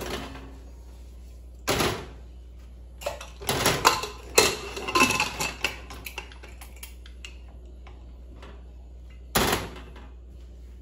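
An aluminium pressure cooker being handled on a gas hob's steel pan supports, making metallic knocks and clatter. A quick run of knocks and scrapes comes about three to six seconds in, as the lid is fitted and locked with its handles. A single knock near the end is the pot being set down on the grate.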